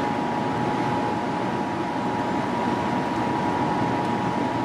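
Steady rush of fast river water flowing below a dam, with a steady high-pitched whine running through it.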